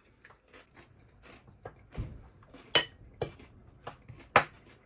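Cutlery clinking and scraping against dishes while eating: a scatter of light taps, with two sharper clinks near the end.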